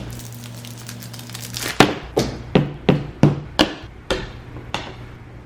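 A quick run of about eight sharp taps and knocks, hard objects knocking on a workbench, with a low steady hum under the first two seconds.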